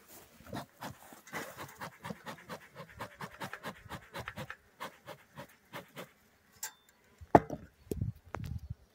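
Bee smoker's bellows pumped by hand in quick, breathy puffs, several a second. About seven seconds in comes a sharp knock, followed by a few low thumps.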